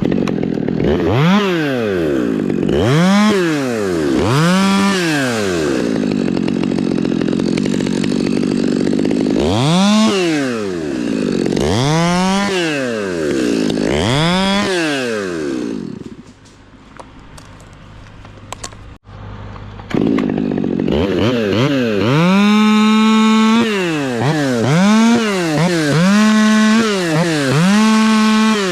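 Chainsaw revving up and down repeatedly, with stretches where the engine note drops and holds as it cuts into wood. About two-thirds of the way through it falls back to a quieter idle for a few seconds, then revs hard again.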